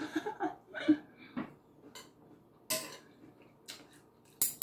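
Metal spoon and fork clinking and scraping on a ceramic dinner plate while eating, as a handful of separate sharp clicks. The loudest click comes near the end.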